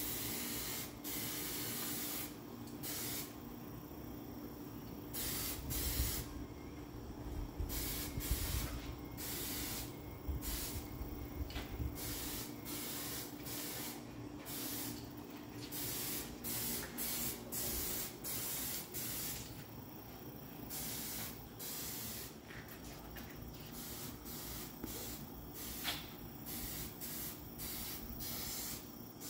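Aerosol can of Eastwood 2K high-temp engine primer spraying in many short hisses, one after another with brief pauses between them.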